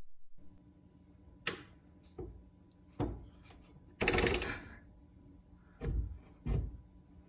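Plastic cat flap clacking in sharp, irregular knocks as cats paw at it from both sides, with a longer rattle about four seconds in.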